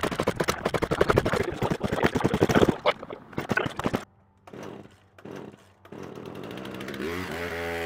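Small gas chainsaw's two-stroke engine running with rapid, uneven firing, then cutting out about two and a half seconds in. A couple of brief sounds follow in the quiet, and a rising hum builds near the end.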